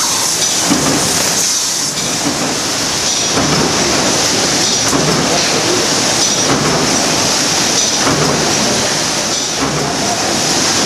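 Wire-comb book binding line with its inline spine-trimming knife running: a steady mechanical clatter and hiss, with a repeating machine stroke about every one and a half seconds as each book block is cycled through.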